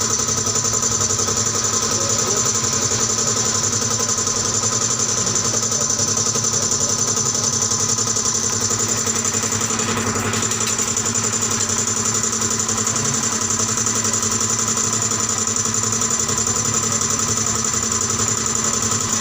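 A machine running steadily throughout: an even motor hum with several constant tones, including a high whine, and no change in speed.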